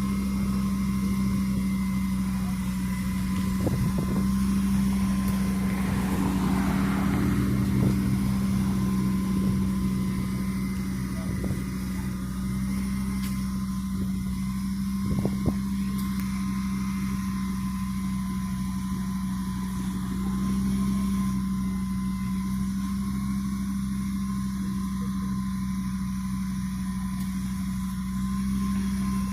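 A vehicle's steady engine drone with a constant low hum, broken by a few brief knocks.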